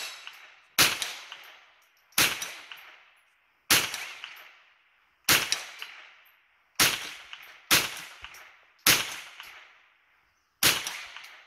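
Eight .22 rifle shots fired at a steady pace, about one every second or so. Each shot is a sharp crack that fades out over about a second.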